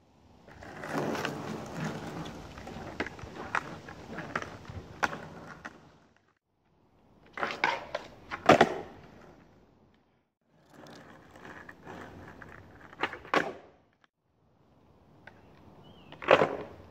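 Skateboard wheels rolling on asphalt, broken by sharp clacks of the deck and tail hitting the ground during freestyle tricks, in several short takes with abrupt cuts between them. The loudest clacks come about halfway through and again near the end.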